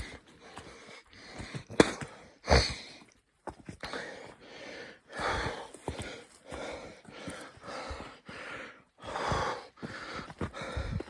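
A person breathing hard while walking over loose rock mine tailings, with footsteps crunching. Two sharper knocks come about two seconds in.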